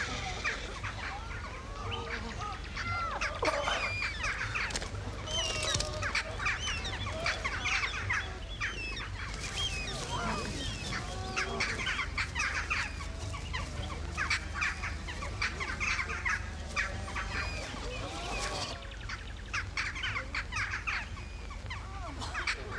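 A flock of birds calling over and over, many overlapping calls, some harsh and rasping, others short chirps and whistles, over a steady low hum.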